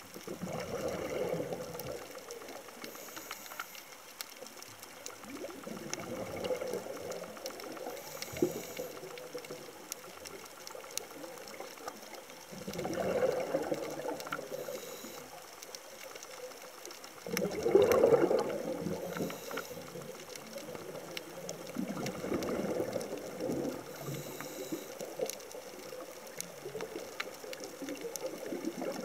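Scuba diver breathing through a regulator underwater: a bubbly, gurgling exhalation about every five seconds, with a short faint hiss of inhalation between them.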